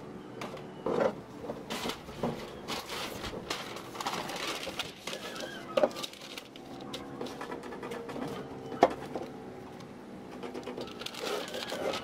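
Wrapping paper rustling and crinkling as it is unfolded and spread out, with a few sharp knocks as a stretched canvas is handled and set down on a wooden table, the loudest about a second in, near six seconds and near nine seconds.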